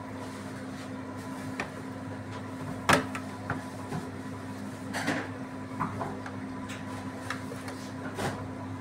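A metal spoon clinking and knocking against buns, sauce dish and a steel tray: about six separate sharp knocks, the loudest about three seconds in. A steady low machine hum runs underneath.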